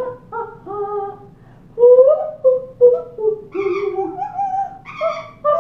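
A tune sung in held notes that step and slide in pitch, growing louder about two seconds in: an Amazon parrot and a woman singing together.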